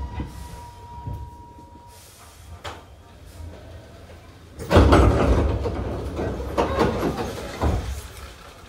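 Passenger doors of a Hankyu 8000 series train sliding open at a station stop, a loud rush of door noise about five seconds in that lasts about three seconds. Before it a faint steady tone dies away in the first two seconds.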